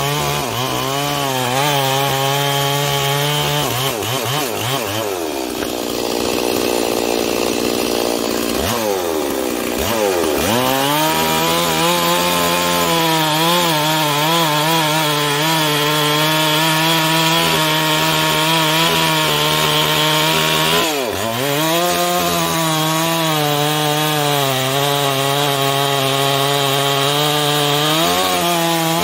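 Ported Stihl 046 two-stroke chainsaw cutting through a large log round, running hard under load. Its engine pitch drops and recovers several times, most deeply about nine seconds in and again about twenty-one seconds in.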